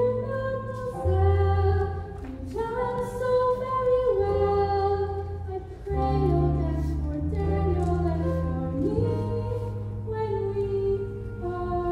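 A young performer's voice singing a slow musical-theatre song in long held notes over an accompaniment of sustained bass notes.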